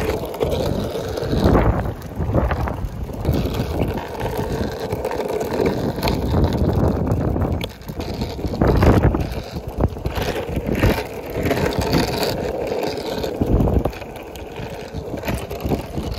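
Wind buffeting the microphone while riding, an uneven rushing rumble with stronger gusts about a second and a half in, around the middle, and again near the end.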